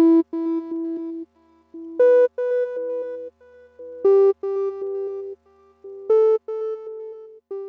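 Short synthesizer tune: a melody of separate notes in four phrases about two seconds apart, each opening on a louder accented note, stopping abruptly at the end.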